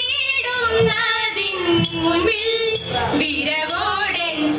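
Women singing a Thiruvathira song (Thiruvathirappattu), a melodic line with long held notes, joined by a few sharp hand claps.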